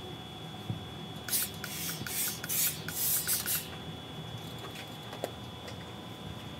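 Steam iron fed by a steam generator releasing a quick series of short hissing steam bursts, each starting with a faint valve click, for about two seconds in the middle.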